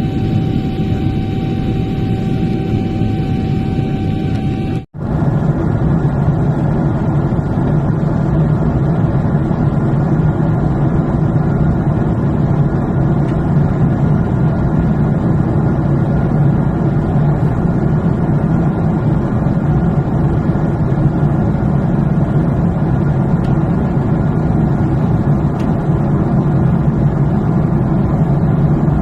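Steady noise of an airliner's cabin in flight, the engines and rushing air running evenly, with a steady whine on top at first. The sound cuts out for an instant about five seconds in and resumes as an even, lower roar without the whine.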